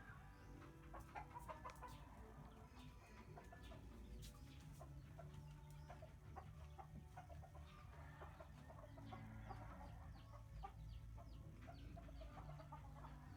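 Faint, scattered bird calls over a low steady hum.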